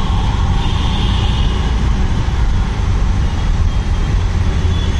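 Steady low engine rumble and road noise from inside a moving auto-rickshaw in city traffic.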